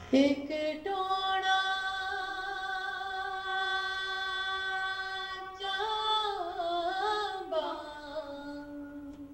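A woman's voice singing unaccompanied: one long held note, then ornamented turns about six seconds in, settling on a lower held note near the end.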